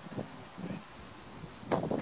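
Wind buffeting the microphone, with a few faint thuds in the first second. Near the end a much louder sound with a wavering pitch starts abruptly.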